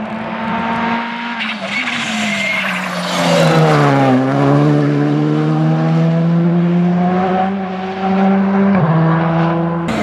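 Škoda Fabia R5 evo rally car's turbocharged four-cylinder engine at full speed, passing close by on a tarmac stage. The engine pitch falls steeply about four seconds in as the car goes past, then climbs steadily as it pulls away, dipping briefly once near the end at a gear change.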